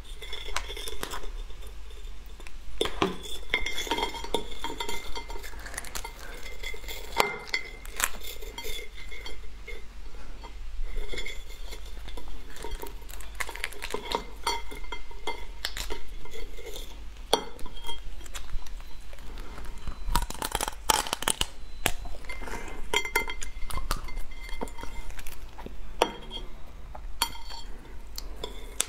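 Close-up crackling and snapping of a raw swimming crab's shell and legs being pulled apart by hand. Scattered sharp clicks, with shell pieces clinking against a ceramic plate.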